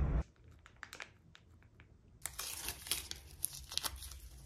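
Crinkly packaging rustling and crackling as it is handled and opened: a few soft clicks at first, then steady crinkling from about two seconds in. At the very start a loud rumble cuts off abruptly.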